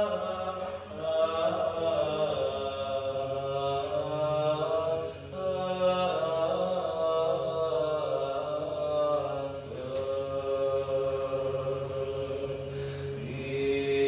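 Slow sung chant: long held notes that bend in pitch, over a steady low drone, with short breaks between phrases about five and ten seconds in.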